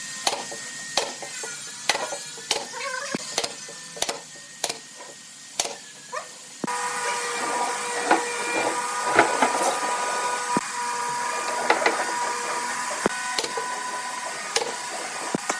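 Workshop tool noise: a run of sharp knocks and taps, then a small motor starts running steadily a little under halfway in, with more knocks over it.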